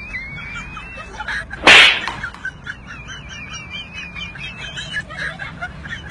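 A single sharp slap about one and a half seconds in, by far the loudest sound, over a continuous high warbling, chirping whistle.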